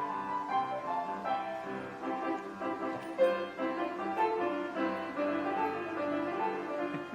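Piano playing a slow instrumental piece, with a melody over sustained chords.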